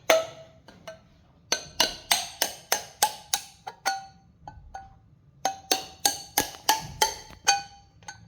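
A sharp nail being knocked through the metal of a tin can to punch holes, in quick runs of sharp, ringing metallic knocks about three a second, with short pauses between runs.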